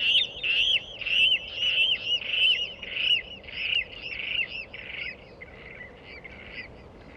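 Water rail giving its squealing call: a run of harsh, arched squeals, about two a second, growing fainter and dying away near the end.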